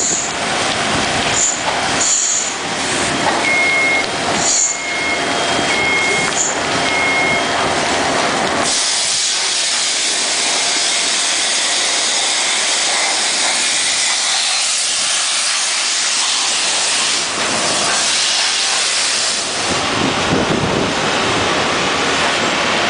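Shotcrete sprayed from a hose nozzle onto steel rebar: a loud, steady rush of air and concrete. A beeping alarm sounds four times, about a second apart, in the first third. About nine seconds in, the sound changes abruptly to a steady high hiss.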